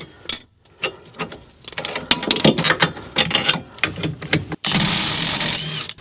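Tools and metal parts clinking and knocking during rear suspension work. Then a cordless impact wrench runs steadily for about a second near the end, spinning off a suspension bolt.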